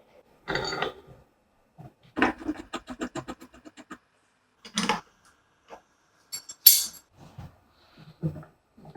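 Metal clicks and knocks from a restored pipe vise being handled and worked. A quick run of even ticks starts about two seconds in, and the sharpest, loudest metallic hit comes near the end.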